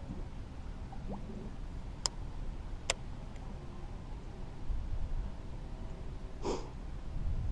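Steady low background rumble with two sharp clicks a little under a second apart, about two and three seconds in, and a brief soft rush of noise near the end.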